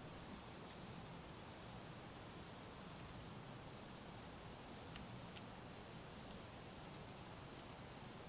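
Faint steady hum and air hiss of a running furnace blower, with a thin high-pitched tone over it. A couple of faint small clicks come about five seconds in.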